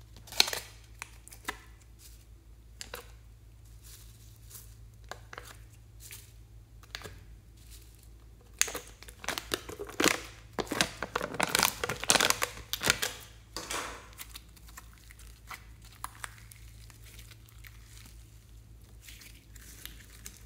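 Slime being pushed out of a plastic palette tray and worked onto foam beads in a glass dish: scattered sticky clicks and crackles, thickest over a few seconds in the middle.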